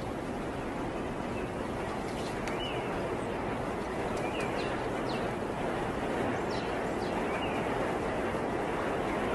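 Steady rushing outdoor background noise, with a few faint, short high chirps scattered through it.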